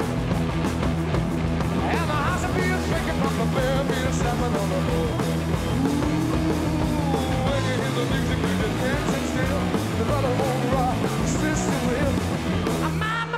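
Rock music with guitar and singing.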